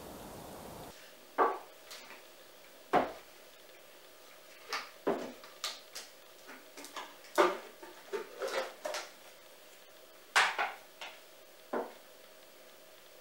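Lid of a hard plastic tub being worked and pried open, then handled: irregular sharp clicks and knocks of plastic, about a dozen over ten seconds, the loudest about a second and a half, three, seven and a half and ten and a half seconds in. Before them, for about the first second, a steady hiss of rain.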